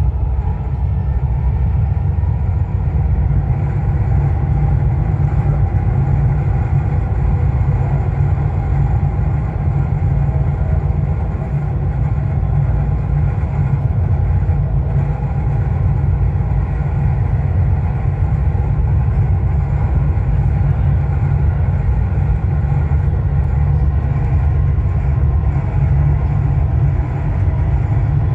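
Dubai Metro train running at speed on elevated track, heard from inside the front car: a steady, even, low rumble that does not change.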